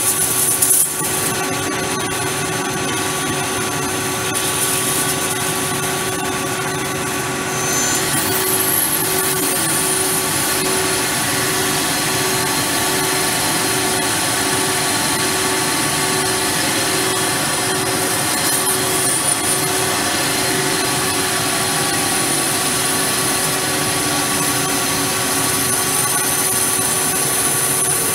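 CNC lathe turning a piston dome, the spindle running and the tool cutting steadily with a constant whine and cutting noise. A faint pulsing tone runs through the middle of the cut.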